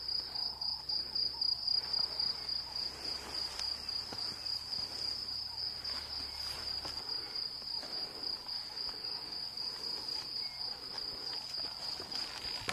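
Insects trilling in one continuous, steady high-pitched band.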